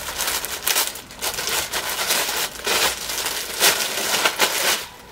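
Thin clear plastic garment bag crinkling and rustling in irregular bursts as a sweater is pulled out of it by hand; the crinkling stops shortly before the end.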